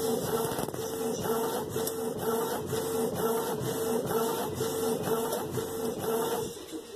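Canon inkjet printer printing a full-colour page, its print head shuttling back and forth in a steady rhythm of about two passes a second with a humming tone, as the sheet feeds out. The passes stop shortly before the end.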